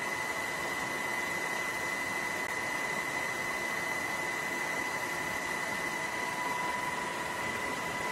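Aircraft cabin noise: a steady rush with a constant high-pitched whine.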